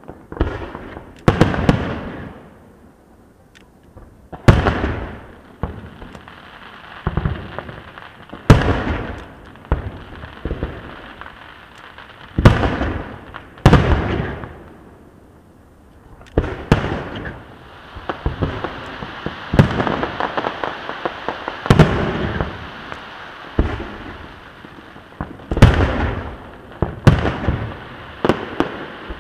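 Aerial fireworks shells bursting overhead, about ten loud booms a few seconds apart. A steady crackling fills the gaps between booms for several seconds past the middle.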